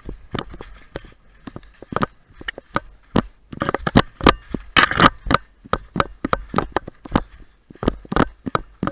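An irregular run of sharp clicks and crunches, several a second, busiest about four to five seconds in.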